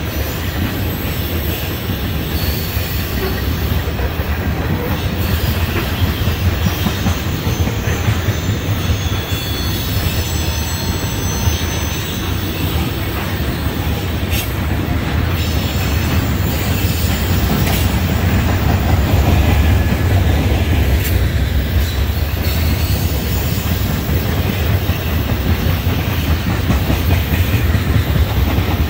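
Railroad tank cars of a freight oil train rolling past close by: a steady, loud rumble of steel wheels on rail, with clatter over the rail joints. A faint high wheel squeal comes and goes in the first half.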